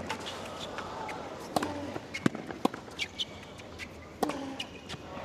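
Tennis on a hard court: several sharp, separate knocks of racket strings striking the ball and the ball bouncing, over a faint steady crowd murmur.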